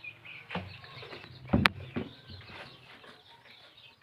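Young chicks peeping and chickens clucking, with a loud thump about a second and a half in and a lighter knock just before it.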